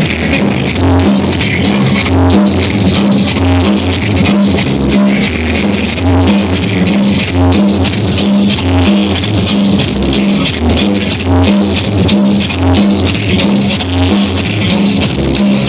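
Loud dance music played over a sound system, with a repeating bass line and fast, even shaker-like percussion.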